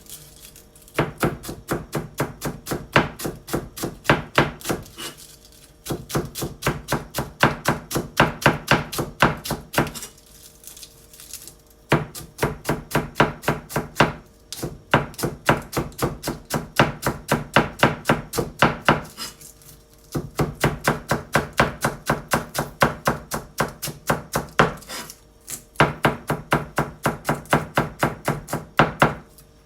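Kitchen knife finely shredding cabbage on a cutting board: rapid, even chopping strokes in runs of a few seconds, broken by short pauses.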